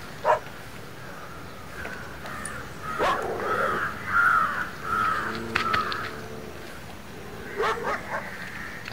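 Crows cawing, a run of several calls in the middle, with a few sharp knocks or snaps before and after.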